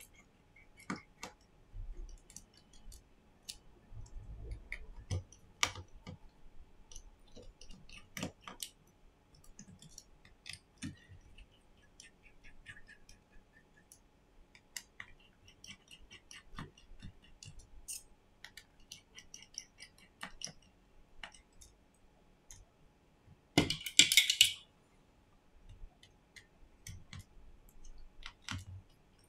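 Scattered small clicks and taps of tweezers and small tools against the plastic and metal internals of an opened smartphone as it is taken apart, with one louder scratchy rasp lasting about a second near the end.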